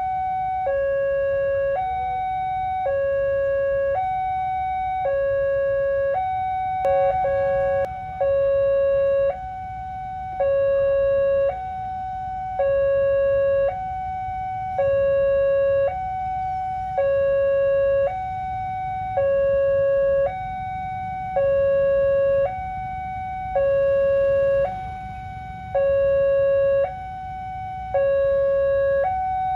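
Railway level-crossing warning siren sounding a continuous two-tone cycle: a short higher note, then a longer lower note, repeating about every two seconds, which signals that a train is approaching and the crossing is closed. A steady low rumble lies underneath, from the approaching train's diesel locomotive.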